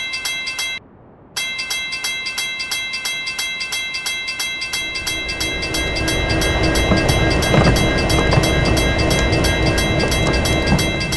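Railroad crossing warning bell ringing in rapid repeated dings, cutting out briefly about a second in and then resuming. From about five seconds in, a passing train's rumble builds under the bell.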